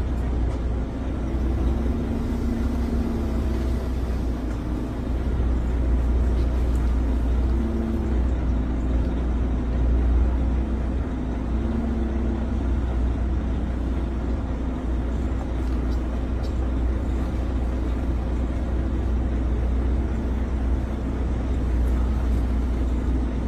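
Truck's engine running with a steady low rumble, heard from inside the cab while the truck is driven and steered.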